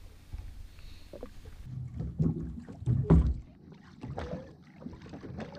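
Handling noises as a gurnard is unhooked and held over a rubber landing net on a jet ski: scattered clicks and light knocks, with a cluster of louder low thumps about two to three seconds in.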